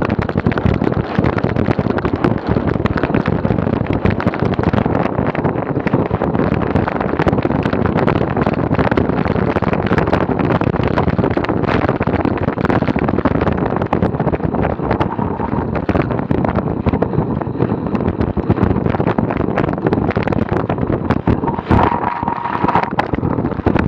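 Wind rushing over the microphone of a camera mounted on a moving cyclocross bike, with constant rattling and knocking from the bike jolting over the ground. A brief steady tone sounds near the end as the bike slows.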